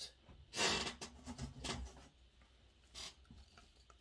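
Rustling and handling noise as a woven straw hat is picked up and handled: a louder rustle about half a second in, a few softer ones after it, and one more near the end.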